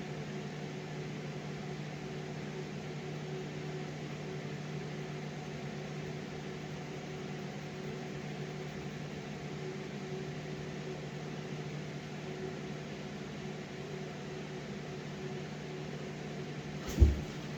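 Steady machine hum with a low drone and a light hiss, unchanging throughout; a single sharp knock near the end.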